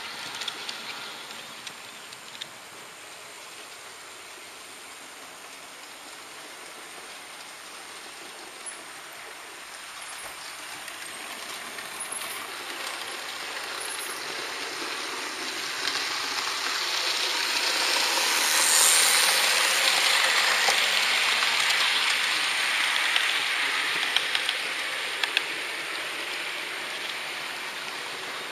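HO-scale model train running along the track, its wheels rolling on the rails with a steady rushing hiss and a few small clicks. The rolling noise grows louder past the middle and eases off again near the end.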